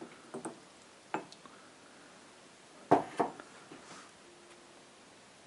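A few light clicks and knocks of a mug being handled and set down on a wooden workbench, the loudest pair about three seconds in, over faint room noise.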